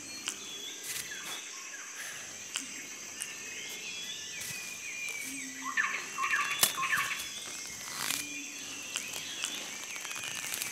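Tropical rainforest ambience: a steady high-pitched insect drone with scattered bird calls, and a burst of chirping calls about six seconds in. A few sharp clicks stand out over it.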